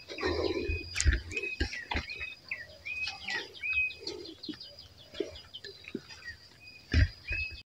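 A bird repeating a short, hooked call again and again, roughly one or two a second, over a thin steady high whine. Dull thumps of footsteps and camera handling come through, loudest about a second in and near the end.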